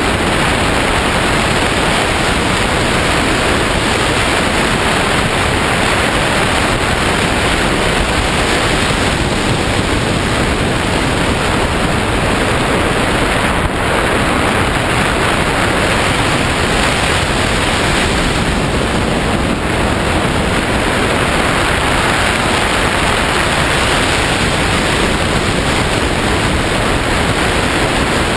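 Steady, loud rush of airflow buffeting a camera microphone mounted on a hang glider's wing in flight.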